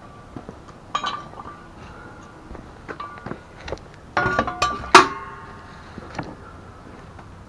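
Metal objects clinking and knocking with brief ringing tones, scattered at first, then a quick cluster of strikes about four seconds in, the loudest just before the five-second mark.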